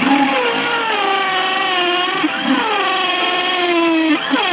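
Corded electric drill boring a hole through a wooden stick. The motor whine starts abruptly and its pitch sags under load as the bit bites into the wood, rising again briefly about two seconds in and again near the end.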